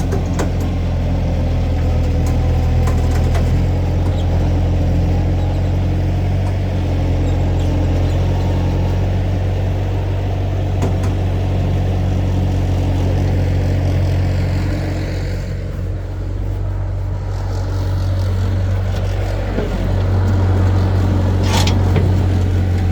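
A vehicle engine running steadily, easing off about two-thirds of the way through and picking up again near the end, with a short sharp knock shortly before it ends.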